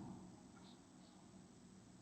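Near silence: a faint low hum of background noise.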